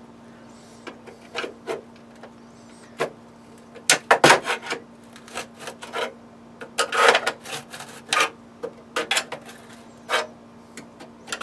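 An old Cisco router's case being slid and pried apart by hand: irregular scraping, rubbing and clicking of the housing parts, loudest in clusters about four and seven seconds in, over a faint steady hum.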